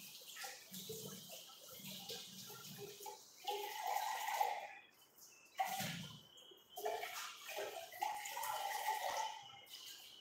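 Water from a kitchen tap running on and off as something is rinsed under it at the sink.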